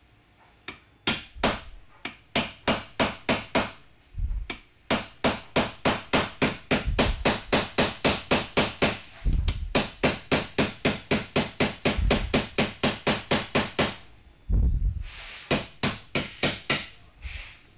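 A hammer tapping a steel 3/16 punch to drive a dowel pin out of the barrel end of a Pneu-Dart Model 178 dart projector. It is a long run of quick, light metal strikes, about four a second, with a brief pause near the end before a few more taps.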